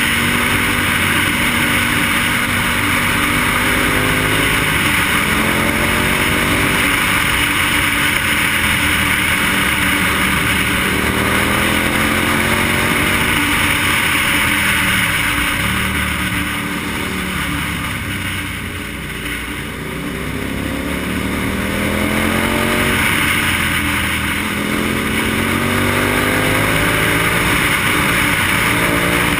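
KTM motorcycle engine under way, its pitch climbing as it pulls and dropping back as the throttle is rolled off, several times over, easing off and quieter about two-thirds through before building again. Heavy wind rush on the helmet-mounted microphone runs underneath.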